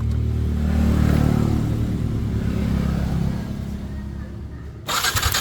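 A motorcycle engine running, swelling in the first second and dying away over the last second or two. Near the end comes a short, loud burst of hissing noise.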